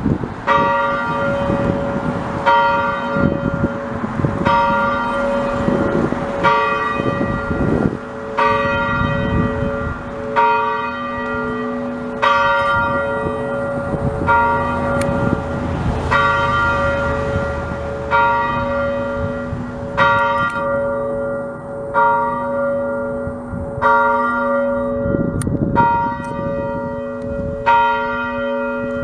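A single church bell being rung, about one stroke every two seconds, each strike still ringing when the next one lands.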